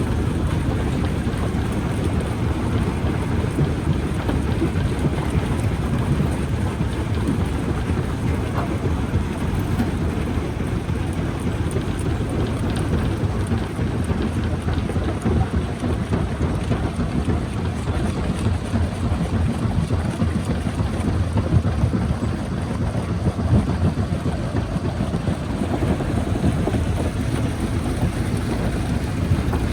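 Rock crusher running, a steady heavy low rumble of machinery and rock being broken.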